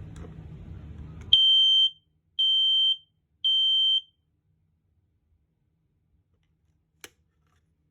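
Family Guard FG200 smoke alarm sounding on its test button: three loud, steady, high-pitched beeps about a second apart, the standard temporal-three alarm pattern. Handling noise comes before the beeps, and there is a single click near the end.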